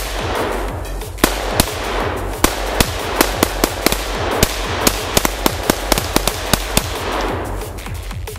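Rapid rifle fire: about twenty sharp shots in quick, uneven succession, two to three a second through the middle, thinning out near the end.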